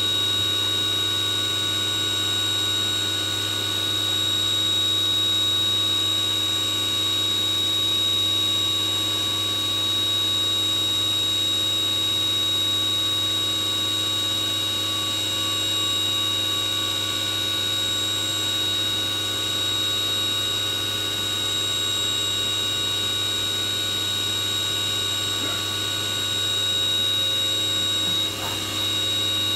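Leadwell V40 CNC vertical machining centre running under power: a steady low hum with a constant high-pitched whine.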